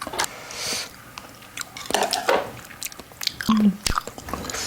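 Close-miked eating sounds: chewing and mouth smacks with many small sharp clicks, a brief hissing slurp about half a second in, and a short hum about three and a half seconds in.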